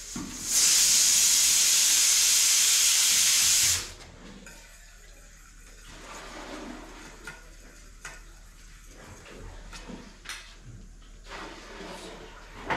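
A loud hiss of escaping air or steam starts about half a second in, runs about three seconds and cuts off abruptly. After it comes a quieter background with a few faint knocks.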